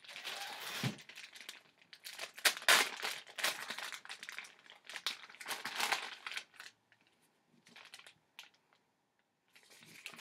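Plastic cheese-slice package crinkling and rustling as it is handled and pulled open. The crinkles are dense for about the first six seconds, then come fewer and fainter as a slice is taken out.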